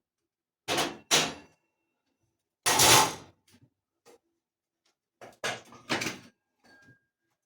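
Several separate clunks and knocks of hard objects being handled. Two come about a second in, a longer, louder one about three seconds in, and a quick run of knocks near the end.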